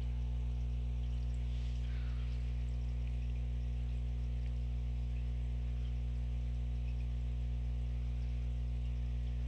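A steady low hum made of several constant tones, unchanging throughout, with a faint brief rustle about two seconds in.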